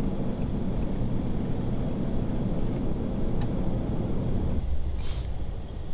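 Steady, deep rushing noise of an Airbus A380 in flight, airflow and engines heard from inside the cabin. The low rumble eases off about four and a half seconds in, and a brief hiss follows.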